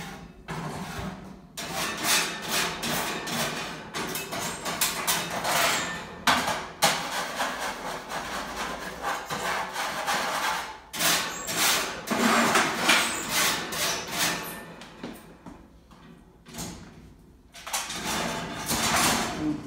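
Metal wire cage being cleaned by hand: irregular knocks, scrapes and rattles of the bars, fittings and pull-out bottom grate, with a short lull shortly before the end.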